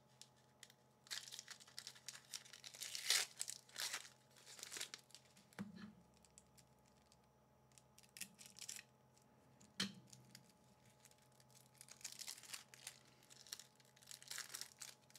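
Foil wrapper of a Jumpstart 2022 booster pack being torn open and crinkled, in faint short bursts with pauses between. There are two soft knocks, about six and ten seconds in.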